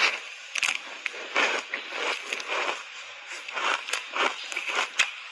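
Refrozen block ice coated in matcha powder being bitten and chewed, close-miked: a loud crunching bite at the start, then a run of irregular crunches as the mouthful is chewed.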